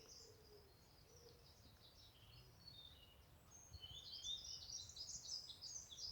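Faint birds chirping and twittering in quick high notes, sparse at first and busier from about four seconds in, over a low background rumble.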